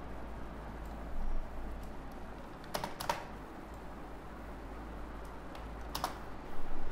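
Computer keyboard keystrokes as CAD commands are typed: a few sharp clicks about three seconds in and again about six seconds in, over a steady low electrical hum.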